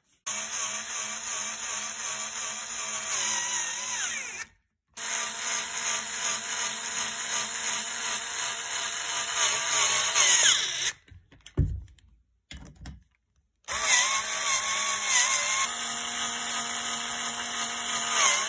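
Mastercraft cordless screwdriver whirring as it drives bolts into a bed frame. It runs in three bursts, about 5 s and 13 s in after short pauses, and each burst winds down in pitch as the trigger is released.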